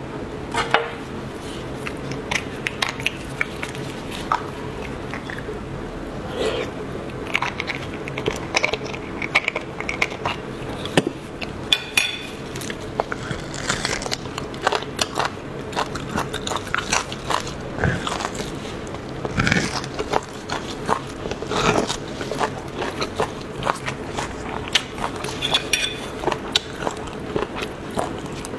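Close-miked eating of braised beef bones with marrow: biting into and chewing the meat on the bone, full of sharp clicks and wet mouth sounds, over a steady low hum.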